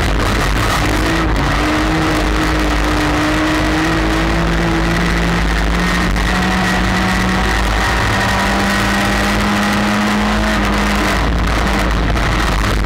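Dirt-track race car's engine heard from inside the cockpit, running hard under a constant loud noise; its pitch climbs slowly over several seconds as the car accelerates, then drops back near the end.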